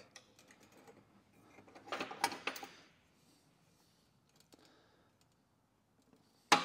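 Light clicks and taps of stainless steel exhaust tube pieces being handled and lined up, then one sharp metallic clank near the end that keeps ringing.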